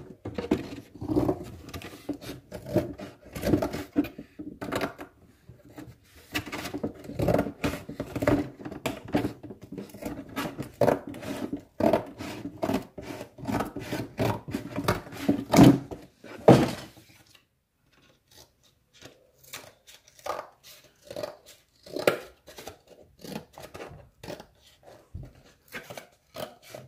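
Cardboard being cut out with scissors: many quick snips and scrapes, loud and dense for the first sixteen seconds or so, then fainter and sparser.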